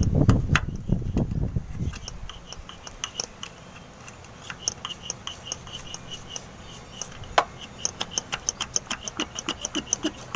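A hand priming pump on an Isuzu Elf 4JG2 diesel's fuel filter being pumped over and over with a run of light clicks, several a second. This primes the new filter and bleeds air from the fuel line. A louder rustle fills the first two seconds.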